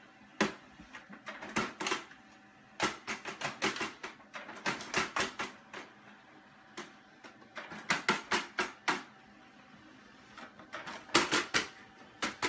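Short bursts of quick clicking and tapping around a multifunction printer as it feeds paper out, with a cat batting at the printer and the emerging sheet.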